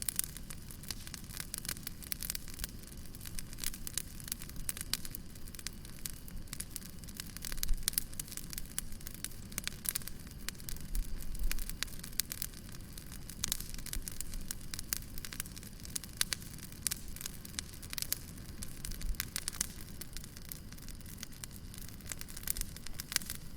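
Wood fire crackling, with a constant scatter of sharp pops and snaps over a low rumble; a few louder pops stand out partway through.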